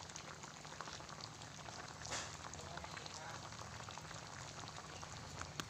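Coconut milk bubbling at a boil in an open pan, a steady crackle of small pops with one louder pop about two seconds in.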